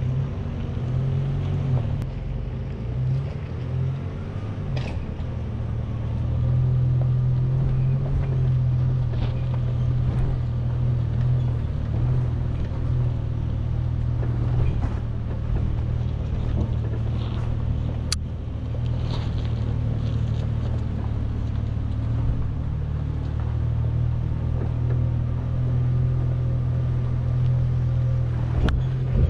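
Chevrolet Colorado ZR2 pickup's engine running steadily at low revs as the truck crawls up a rocky off-road trail, heard from inside the cab, with a few sharp clicks and knocks along the way.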